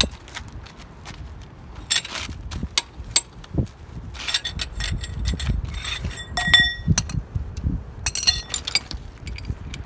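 Metal tire-changing tools clinking and knocking against a car wheel, a string of sharp clicks with one ringing metallic clink about six and a half seconds in.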